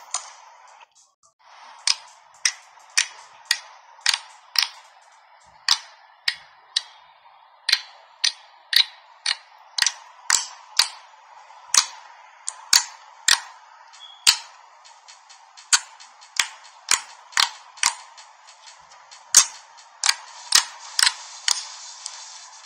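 Clear slime being pressed and poked with fingers, giving a long series of sharp popping clicks, about two a second.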